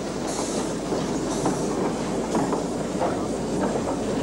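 French-built compound steam tank locomotive moving slowly with its coaches, wheels clicking and clattering over the rail joints, with a burst of high hiss about once a second.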